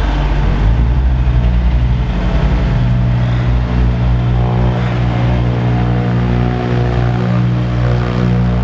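Diesel engines of a tipper truck and a Bitelli BB630 asphalt paver running together in a steady, deep hum while the raised truck body tips asphalt mix into the paver's hopper.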